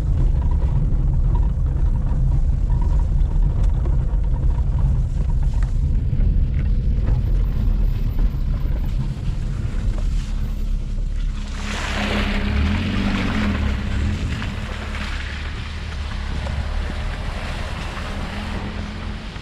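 Chevrolet Prisma 1.4 four-cylinder engine running as the car drives slowly over a rough, muddy dirt track, with a heavy low rumble of the tyres and body. About twelve seconds in a rushing hiss comes in and stays.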